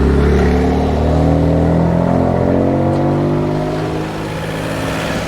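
BMW M4 F82's twin-turbo inline-six with an Akrapovic exhaust accelerating, its engine note climbing steadily in pitch, then dipping slightly in loudness about four seconds in.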